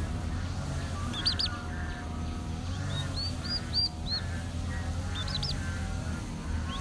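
Chicks peeping in short runs of three or four high-pitched calls as they peck at food, with lower, rougher bird calls going on underneath.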